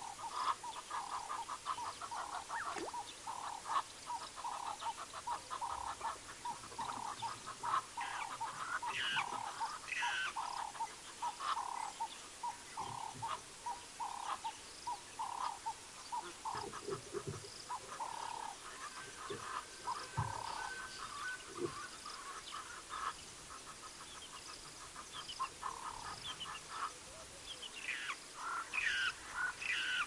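A riverside chorus of frogs calling in quick repeated pulses, mixed with scattered bird calls. A few soft low thumps sound about halfway through.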